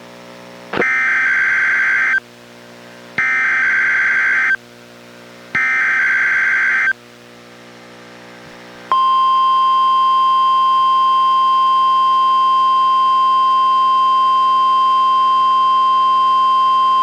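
NOAA Weather Radio test signal from a weather radio receiver. It opens with three evenly spaced bursts of SAME digital header data, each about a second and a half long. About nine seconds in, the steady 1050 Hz warning alarm tone starts and holds.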